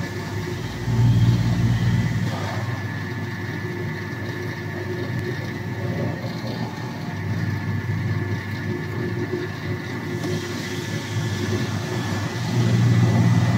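Automatic self-returning dough sheeting machine running: its electric motor and rollers make a steady hum with a faint whine. It grows louder about a second in and again near the end.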